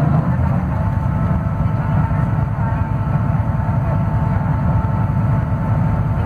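Scania DC09 five-cylinder diesel of a Scania K280UB city bus running under steady load while climbing, heard from inside the passenger cabin as a steady low drone with a faint thin whine above it.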